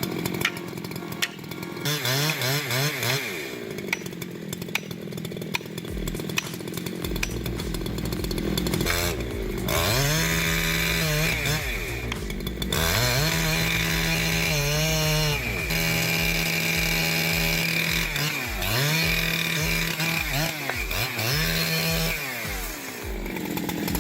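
Gasoline chainsaw engine revving repeatedly: the pitch climbs to full throttle and holds for a second or two, then drops back and rises again several times, as in cutting wood.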